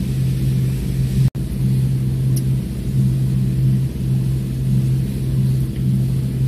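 Canal cruiser's inboard engine running steadily at cruising speed, a low, even drone. The audio cuts out for an instant about a second in.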